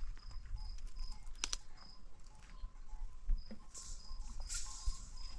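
Insect chirping: a high chirp repeated about three times a second, breaking off for a second or so midway and then resuming, over a low rumble, with a sharp click about one and a half seconds in.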